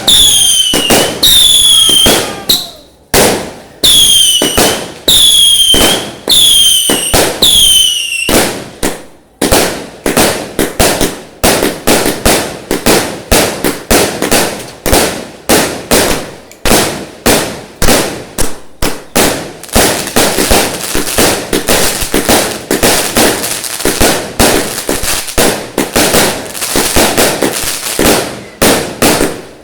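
Fireworks: a string of short whistles, each falling quickly in pitch and ending in a bang, about one a second, then from about nine seconds in a dense, rapid crackle of many sharp bangs that runs on.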